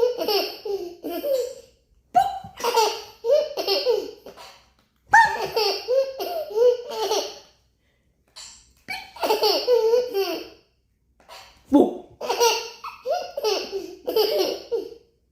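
A baby laughing hard: belly laughs in about five bursts of one to three seconds each, with short pauses for breath between.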